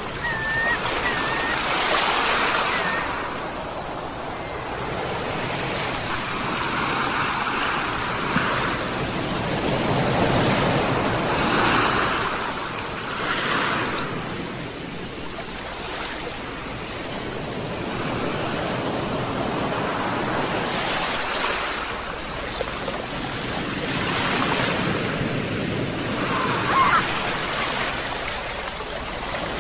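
Ocean surf washing in and out in repeated swells every few seconds, with gulls calling in the first couple of seconds and again near the end.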